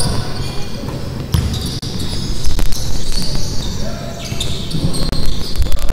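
Basketball being dribbled on a wooden court during play, with several sharp bounces in clusters.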